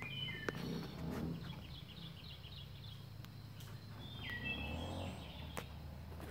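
Wild songbirds calling: a short falling chirp at the start, a quick run of repeated high notes from about a second in, and another chirp around four seconds in, over a steady low background rumble.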